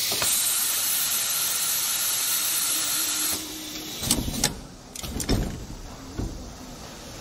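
Steady hiss of compressed air from a pneumatic refrigerator door gasket welding machine, cutting off suddenly about three seconds in. It is followed by a few sharp knocks and clunks as the welded PVC gasket is handled and lifted out of the machine's metal jigs.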